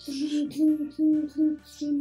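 A young child vocalizing a run of about five short sung syllables on one steady pitch, with a breathy hiss at the start: a pretend vehicle noise for a toy truck being pushed along.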